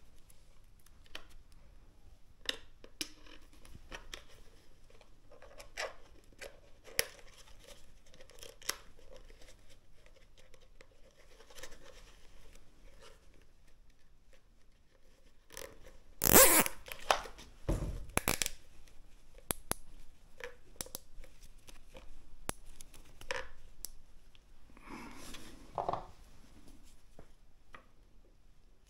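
Plastic cable ties being pulled tight with short ratcheting rasps, among scattered small handling clicks. The loudest rasps come a little past halfway and again near the end.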